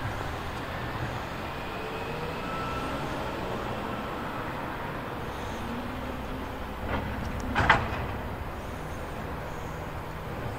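Diesel wheel loader running steadily while plowing snow. Two sharp knocks come about seven seconds in, the second louder.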